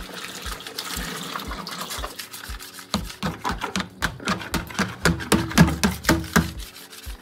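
Thick umqombothi (traditional beer) mash pouring out of a plastic bucket into a plastic drum for the first two seconds or so. Background music with a steady beat, about two a second, runs under it and grows louder after about three seconds.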